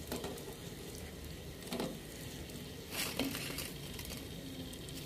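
Fried puffed-rice sweets being dropped into warm sugar syrup in an aluminium pot: a faint hiss with two short knocks, about two and three seconds in.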